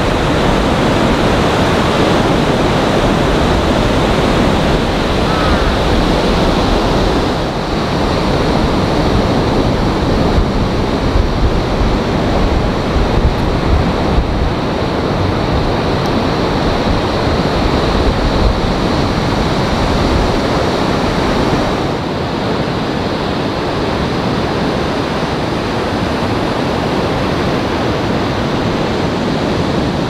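Surf breaking on a sandy beach: a steady, loud rush of waves raised by a typhoon swell.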